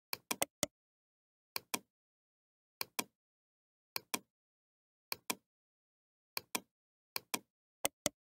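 Computer mouse button clicking: about eight pairs of short, sharp clicks, roughly one pair a second, each press and release a fifth of a second apart, with dead silence between.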